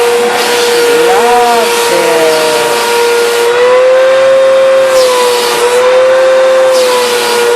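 Vacuum cleaner running as it is worked over a golden retriever's coat: a steady motor whine that sways slightly in pitch as the suction load changes, with repeated rushes of airflow.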